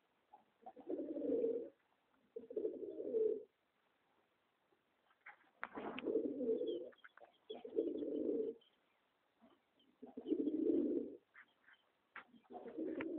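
Domestic pigeons cooing: six low, rounded coos, each about a second long, repeated every second or two.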